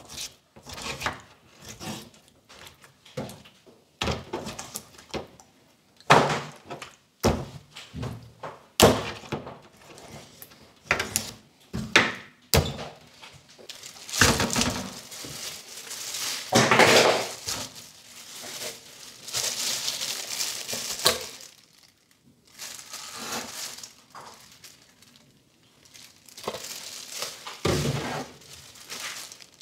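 A knife cutting raw chicken legs apart on a plastic cutting board, with many irregular knocks and thunks of the blade hitting the board. About halfway through, a longer stretch of rubbing and rustling noise follows as a china plate is handled, then a few more knocks.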